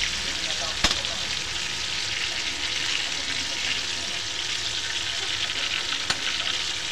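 Pork hock deep-frying in hot oil in a metal wok: a steady sizzle with crackling spatter, while a metal ladle stirs and bastes it. A single sharp knock comes about a second in.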